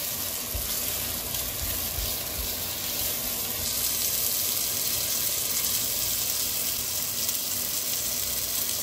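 Sliced linguiça sausage and garlic sizzling in hot oil in a nonstick pot, a steady hiss, with a few soft knocks in the first two seconds as a spatula pushes the pieces around.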